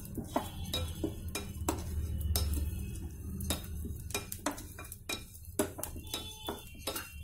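Wooden spatula stirring peeled melon seeds around a hot stainless steel pan, scraping, with many sharp irregular clicks as the seeds start to crackle while they roast.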